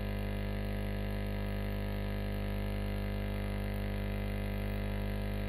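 Steady electrical mains hum on the microphone recording: a low buzz with many evenly spaced overtones, unchanging in pitch and level.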